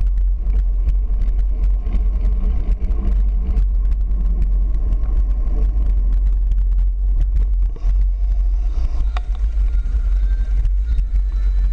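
Wind rumbling on a handlebar-mounted action camera's microphone while riding a bicycle, with rapid rattling clicks from the bike over the pavement. The rumble dips briefly about eight seconds in.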